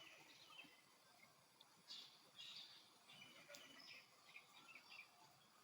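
Faint bird calls: short high chirps and whistles, scattered, with a cluster of calls around the middle.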